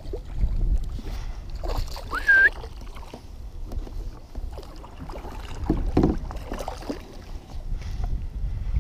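Water and wind noise around a fishing kayak while the angler plays a hooked fish, with scattered knocks from handling the rod. A short rising squeak about two seconds in.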